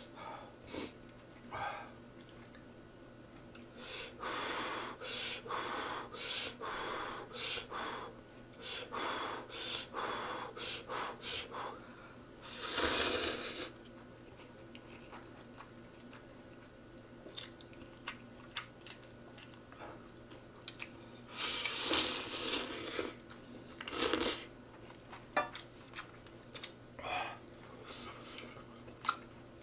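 A person slurping instant ramen noodles and chewing. A run of short slurps and chews comes in the first half, then two longer, louder slurps follow, with small clicks between.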